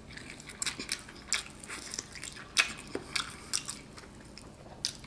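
A person chewing jerk chicken bitten off a drumstick, close to the microphone: irregular wet mouth clicks and smacks, one a little louder about two and a half seconds in.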